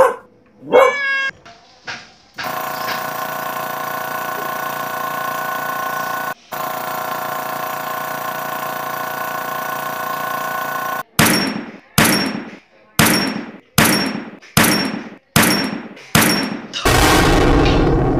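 A string of sound effects: a short meow-like call near the start, then a steady hum of many held tones for about eight seconds, cut off once midway. Seven sharp bangs about a second apart follow, each ringing off, like gunshots, and then a loud rushing noise near the end.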